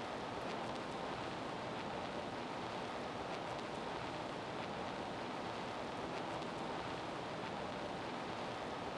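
Steady, even hiss with no change in level, a few faint ticks over it.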